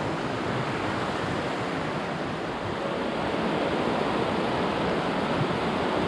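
Shallow mountain creek rushing over rocks, a steady rushing noise that grows a little louder about halfway through.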